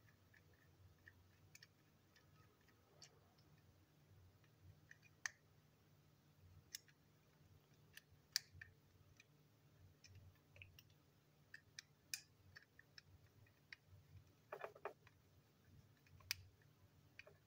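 Scattered small clicks and light knocks of a plastic toy train chassis and its wheels being handled and turned over, with a short cluster of clicks near the end, over a faint steady hum.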